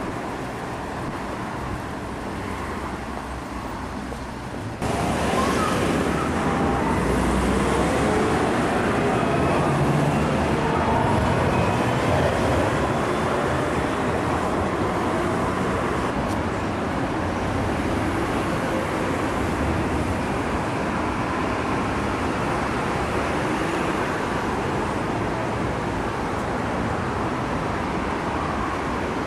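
Urban street noise of road traffic and trams passing, a steady hum and rush of motors and tyres on the road that steps up louder about five seconds in.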